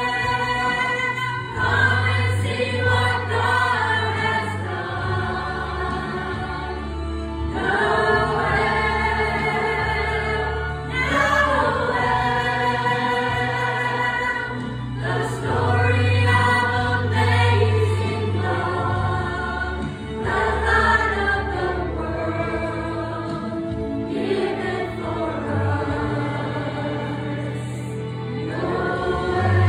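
A choir singing with musical accompaniment, sung lines gliding in pitch over held low bass notes that change every few seconds.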